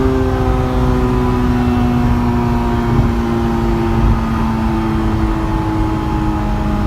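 Honda S2000's four-cylinder engine running under way, its note sliding slowly down in pitch as the revs ease, over a steady low road rumble.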